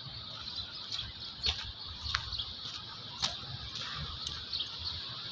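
Outdoor city-street ambience: a steady low rumble and a high hiss, with a few short sharp chirps or ticks about a second and a half, two seconds and three seconds in.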